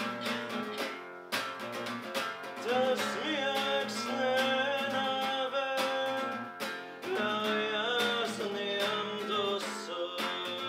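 Acoustic guitar strummed in a steady rhythm, with a voice singing a melody over it from about three seconds in, pausing briefly a little past the middle.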